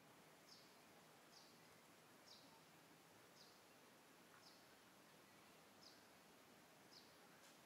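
Near silence with a faint, short, high chirp repeating about once a second, seven times, over steady background hiss.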